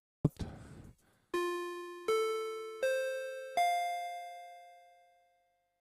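A short rush of noise, then a four-note chime: four bell-like tones about three-quarters of a second apart, each pitched higher than the last, ringing out and fading.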